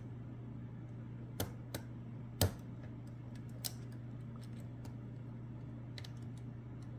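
Lock pick and tension wrench clicking against the pins of a Lockwood Twin pin-tumbler lock: a few scattered sharp clicks, the loudest about two and a half seconds in, over a steady low hum.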